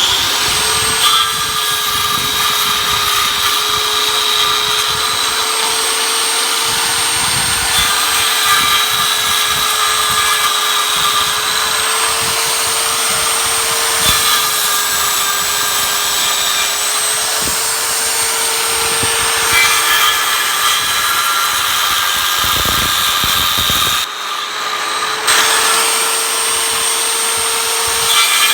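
RIDGID circular saw motor running continuously with a steady whine that wavers slightly in pitch. It eases off briefly a few seconds before the end, then picks up again.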